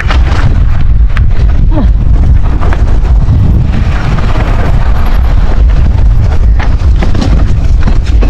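Strong wind buffeting the microphone: a loud, continuous low rumble that drowns out most other sound.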